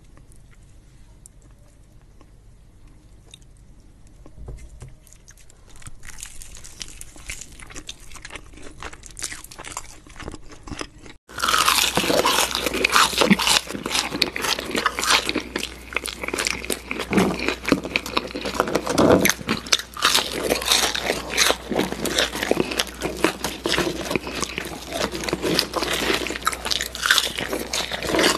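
Close-miked mukbang eating: soft, faint chewing at first, then, about eleven seconds in, abruptly much louder, crisp crunching and chewing of french fries, a dense run of sharp mouth clicks and bites.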